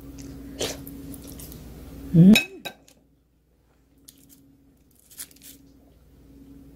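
A dish clinks lightly, then a loud hummed "mm-hmm" rises and falls in pitch about two seconds in. After that come faint taps and parchment-paper rustles as fallen crumbs are picked up.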